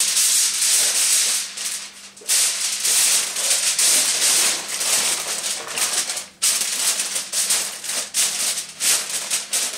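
Sheet of aluminium foil crinkling as it is folded and pressed down over the rim of an aluminium roasting pan. The crackle goes on in long stretches, dropping away briefly about two seconds in and again after six seconds.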